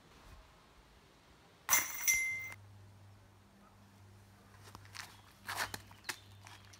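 A disc golf disc striking the basket, a sudden metallic crash of chains with a brief ringing, about two seconds in. A faint steady low hum follows, then a few short scuffs and clicks near the end as a player drives from a concrete tee pad.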